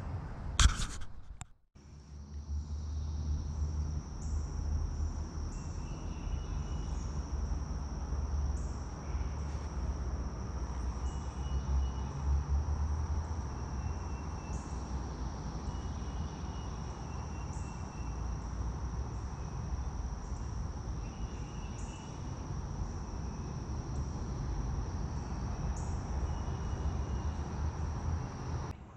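Insects, crickets or similar, calling in a steady high-pitched drone, with short chirps recurring every second or two, over a low steady rumble. A brief loud noise comes right at the start.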